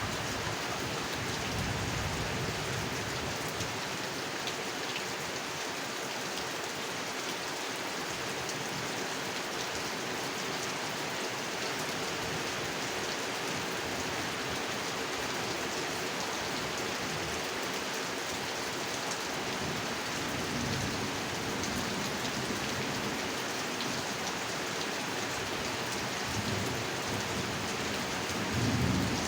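Steady rain falling on a pond, an even hiss of drops on the water, with a brief low rumble near the end.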